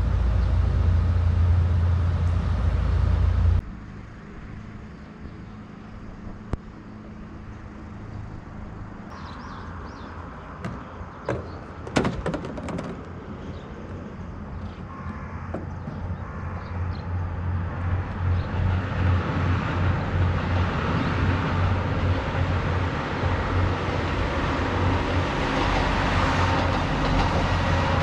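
JR Kyushu KiHa 200-series diesel railcar's engine running loud and steady at a station platform; it cuts off suddenly a few seconds in. Then a quieter scene with a few short high chirps and sharp clicks, and from about the middle a KiHa 220 diesel railcar's engine and wheels growing steadily louder as it approaches.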